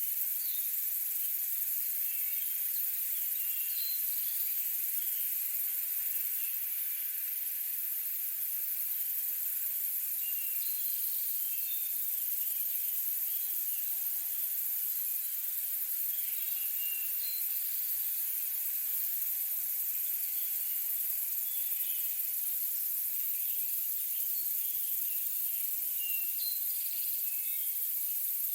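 Forest insect chorus: a steady, dense, high-pitched buzzing drone, with scattered short chirps over it.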